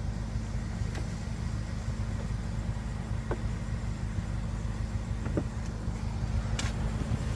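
The 2015 BMW M6 Gran Coupe's twin-turbo V8 idling: a steady low hum with a constant drone, and a few faint clicks.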